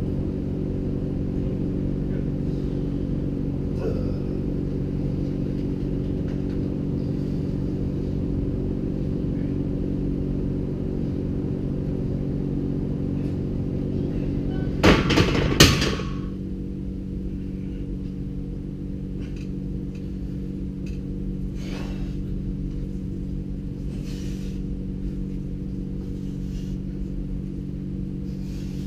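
A steady low hum throughout. About halfway through, a loaded steel barbell clanks against the power rack in a short burst of loud metal impacts, with a brief metallic ring.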